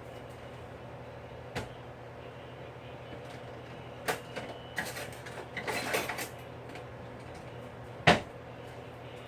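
Kitchen handling noises: a couple of knocks, then a few seconds of clattering like a drawer or cupboard being opened and utensils rummaged through, and one loud sharp knock near the end, over a steady low hum.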